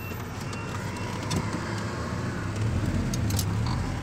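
GAZelle light truck's engine running with road noise, heard from inside the cab while driving, with a few light rattles; it gets a little louder about two and a half seconds in.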